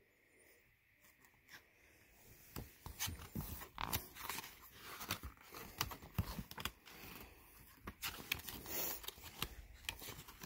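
Pages of a picture book being turned and handled: faint, irregular paper rustling and flapping with light clicks, starting about two seconds in.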